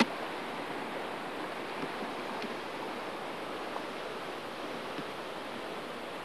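Steady rush of flowing river water, with one sharp click right at the start.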